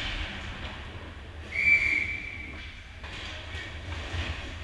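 A hockey referee's whistle blows once, a steady high tone starting about a second and a half in and lasting about a second, over the steady low rumble of the rink.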